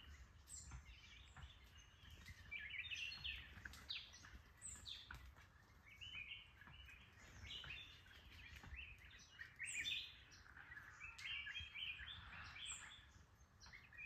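Many small birds chirping, faint: short high calls overlapping and coming in irregular clusters.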